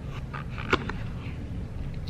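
Plastic fork and white paper takeout box being handled while eating a salad: a scatter of small clicks and taps, one sharper tap about three-quarters of a second in, over a steady low hum.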